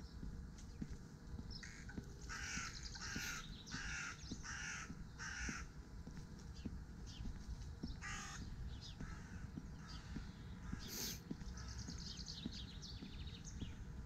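A crow cawing: a quick run of five harsh caws about two seconds in, then a single caw a few seconds later.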